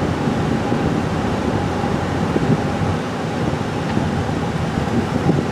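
Steady road and engine noise inside the cabin of a vehicle driving at highway speed.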